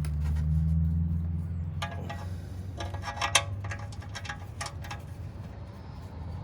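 Metal tools or parts clinking and rattling with a short metallic ring, several clinks over about three seconds, over a steady low rumble.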